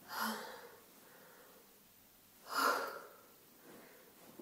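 A woman's two short, sharp breaths close to the microphone, one right at the start and a louder one about two and a half seconds in.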